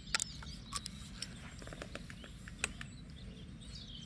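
Outdoor ambience of birds chirping over a steady low rumble, with a few sharp clicks scattered through it.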